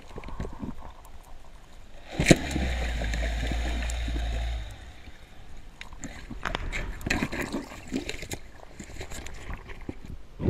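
Underwater sound of a speargun shot: a sharp crack about two seconds in, followed by a couple of seconds of rushing, rumbling water noise that stops abruptly, then scattered clicks and knocks in the water.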